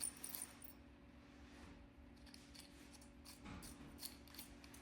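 Near silence, with a few faint, short clicks from the small parts of a syringe self-filling device being loosened and handled.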